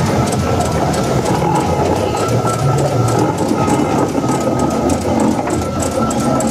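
Steam traction engine running past at close range: a steady mechanical clatter from its motion and gearing, with regular light beats.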